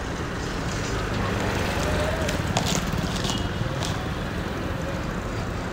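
Busy city street traffic: a steady din of engines, with a few short, sharp high sounds about two and a half and four seconds in.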